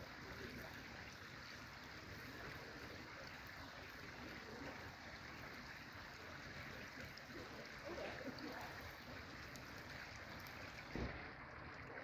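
The Geul, a small river, running over a shallow riffle: a steady, quiet rush of flowing water. A brief low thump near the end.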